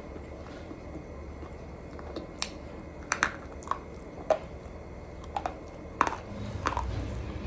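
Crisp crunches while chewing something brittle: about seven irregular sharp cracks, clustered from a couple of seconds in, the loudest about six seconds in.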